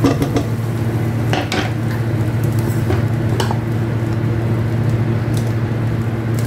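Butter sizzling as it melts and foams in a nonstick frying pan, the start of a gravy, with a few light clicks of a utensil against the pan. A steady low hum runs underneath.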